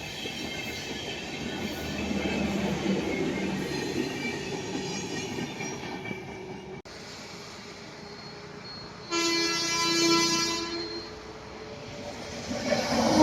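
Train running by with steady rail noise. About nine seconds in a train's air horn sounds for about a second and a half, and another louder horn blast begins near the end.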